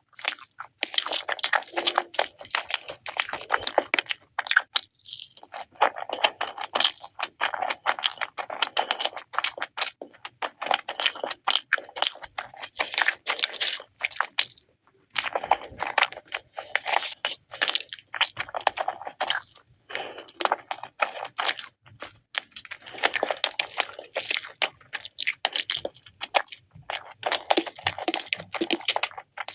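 Close-up crunching and chewing of crispy fried chicken lollipops, in runs of crackly bites with short pauses between them.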